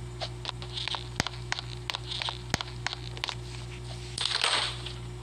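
Scattered light clicks and taps from small objects being handled, with a short crinkling rustle about four seconds in, over a steady low electrical hum.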